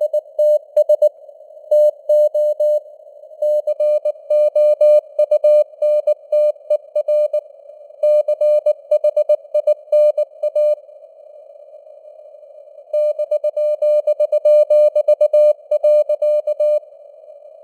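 Morse code (CW) sent at about 19 words per minute as a single beep tone keyed in dots and dashes, over a narrow band of simulated radio receiver noise. The keying pauses for about two seconds midway, resumes, then stops near the end, leaving only the hiss.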